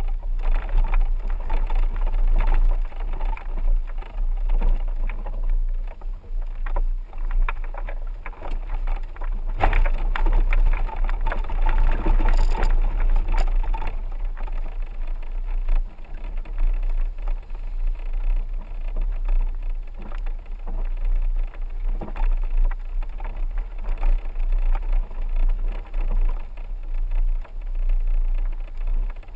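4x4 driving on a rough dirt road: a steady low rumble with frequent knocks and rattles over the bumps.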